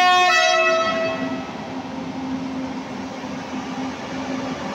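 ETR 500 Frecciarossa high-speed train sounding its two-tone horn, which steps to a different note just after the start and dies away about a second in. The train then keeps rolling slowly in alongside the platform with a steady, quieter running noise and low hum.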